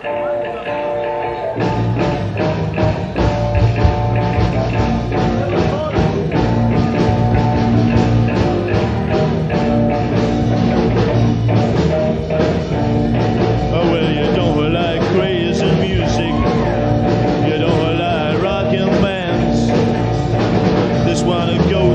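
Rock and roll band playing live: a guitar starts the song on its own, and the full band with drums comes in about two seconds in.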